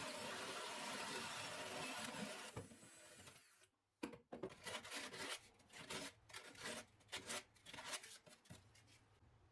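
A small power tool's motor runs steadily, then winds down and stops about two to three seconds in. A string of irregular light knocks and clicks follows, like parts and tools being handled on a wooden workbench.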